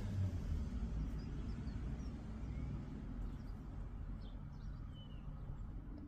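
Outdoor background: a steady low rumble with a few faint, short bird chirps scattered through the middle.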